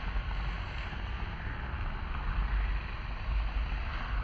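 Wind buffeting the microphone over the steady, distant drone of a radio-controlled plane's battery-powered motor and propeller flying overhead.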